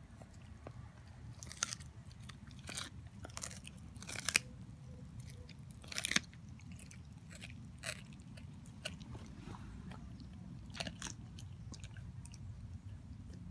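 Siberian husky gnawing on a raw steak bone: irregular wet crunches and cracks of teeth on bone, loudest about four and six seconds in.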